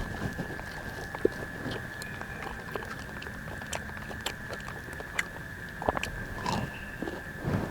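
A person chewing food close to the microphone: soft irregular bites, crunches and mouth sounds, a little louder about six seconds in. A steady high-pitched tone runs underneath throughout.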